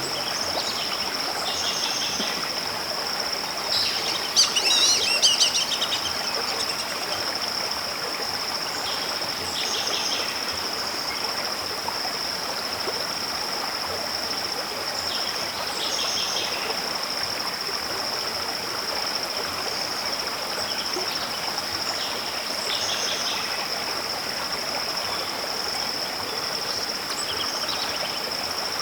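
Wetland field-recording ambience: a steady high-pitched insect drone with short bird chirps recurring every few seconds, the loudest cluster of calls about four to six seconds in, over a soft even rushing like water.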